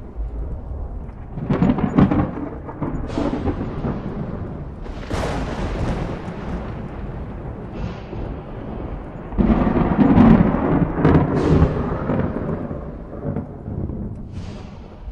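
Thunderstorm thunder: a continuous low rumble broken by several loud cracking peals, the loudest coming about two-thirds of the way through.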